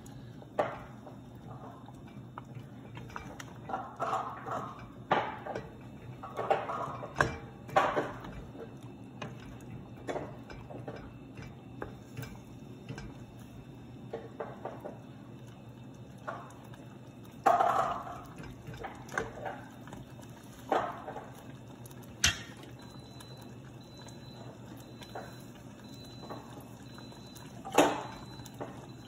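Wooden spatula stirring thick curry in a stainless steel pot: irregular knocks and scrapes against the pot with wet squelches of the gravy, over a steady low hum.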